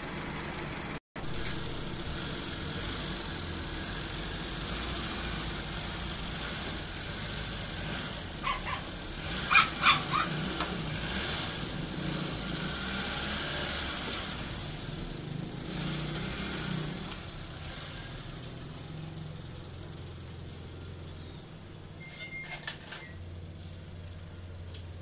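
Carbureted car engine idling steadily after a retimed timing belt and carburettor idle adjustment, running without misfire. A dog barks a few times about nine seconds in.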